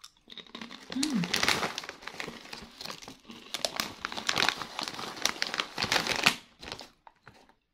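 Foil-lined plastic snack bag crinkling and crackling as it is handled and tilted and a hand reaches in among the potato chips, stopping about six seconds in.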